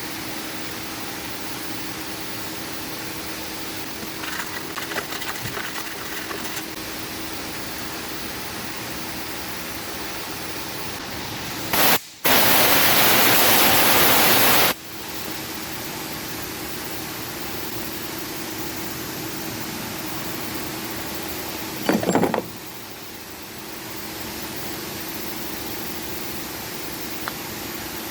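Steady background hum in a repair shop, with light clattering of tools a few seconds in. About twelve seconds in comes a loud, even hiss lasting about three seconds, and a short, loud mechanical burst follows near the 22-second mark.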